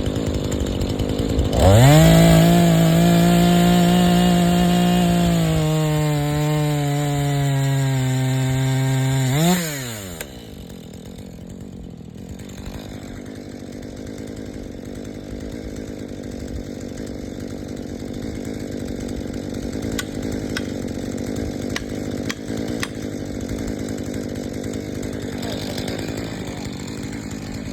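Chainsaw revved sharply to full throttle. After a few seconds its pitch drops and holds lower as the chain bites into the wood, for about four seconds. A brief rev about nine seconds in, then the throttle is released and it falls away. A quieter, steady background with a few faint clicks follows.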